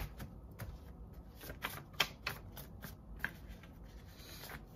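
A tarot deck being shuffled and handled by hand: irregular papery clicks and flicks of cards, with a sharper snap right at the start.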